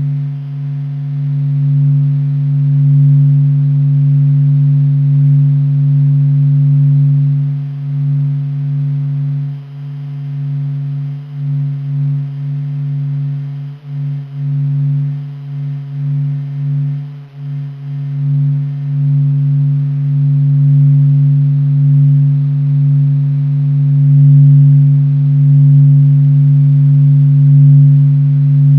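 A low, steady drone of a few held tones, swelling and dipping in loudness: NASA's sonification of the Sun's vibrations, presented as the real sound of the Sun.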